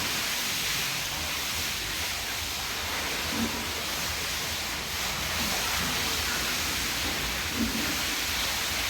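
High-pressure water spray hissing steadily, as used for hosing down and disinfecting pig pens.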